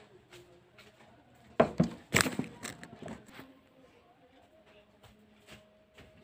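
Handling noise from the recording phone: two loud sharp knocks with scraping about one and a half and two seconds in, then lighter clicks and rustles that die away over the next second. A faint steady hum runs underneath.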